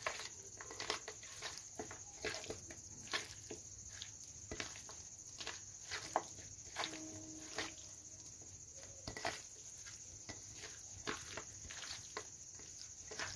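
Raw chicken pieces being squeezed and turned by hand with spice masala in a steel plate: faint, irregular wet squishes and light clicks of meat against metal, about one or two a second.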